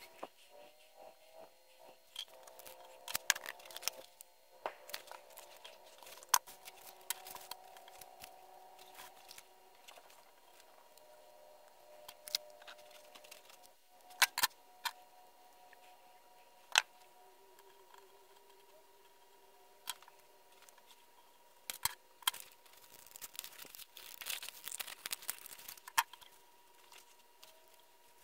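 Scattered sharp clicks and taps of a knife and pencil being handled and set down on a wooden workbench, with brief rustles of paper in between.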